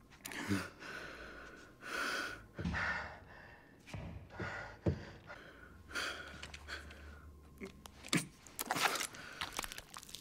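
An exhausted man's heavy breathing: separate ragged gasps and breaths every second or two, with a few small clicks and the rustle of clothing between them.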